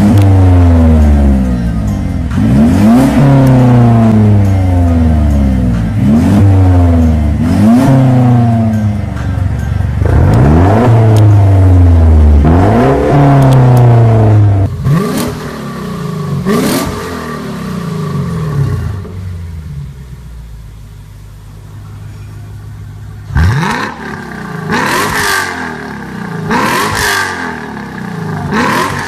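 Performance car engine through an ArmyTrix aftermarket exhaust, revved again and again: the pitch climbs sharply and drops back, about seven revs in the first fifteen seconds. Then it settles into a quieter steady stretch near idle, and more revs come with sharp cracks.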